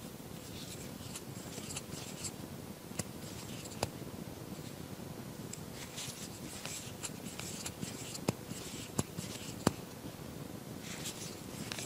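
Soft, scratchy rustling of wool yarn being worked with a crochet hook by hand, in short spells, with a few light sharp clicks of the hook and handling.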